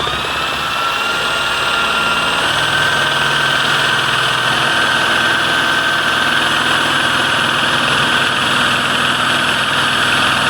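Electric drill spinning up and then running steadily with a high whine as it bores a hole through a wooden door for a deadbolt lock. The note shifts slightly a little over two seconds in as the bit takes up the load.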